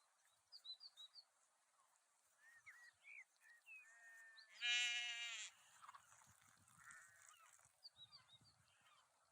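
A sheep bleats once, a loud wavering bleat about a second long, roughly halfway through, with fainter high chirps and soft rustling around it.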